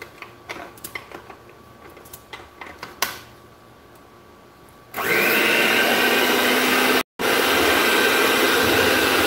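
Small plastic clicks and taps as beaters are fitted into an electric hand mixer; then, about five seconds in, the mixer's motor starts with a loud steady whir, cutting out for a moment about two seconds later.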